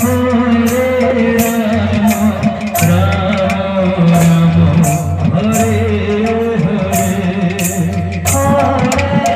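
Kirtan folk music: singing over a steady beat, with sharp metallic percussion strikes about twice a second.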